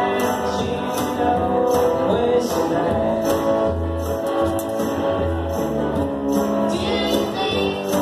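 Live acoustic band playing: guitar over a low bass line, with a steady beat of light percussive strokes.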